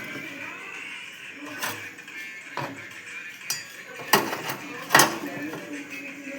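Metal kitchen utensils clinking and clattering in a few separate knocks, the two loudest about four and five seconds in, over faint background voices.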